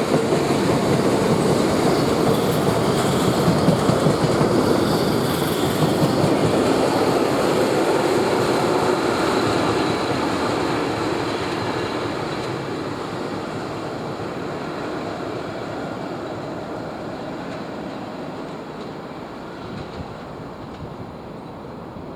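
Loaded oil tank wagons of a freight train rolling past on the track. The noise fades steadily from about halfway through as the train draws away.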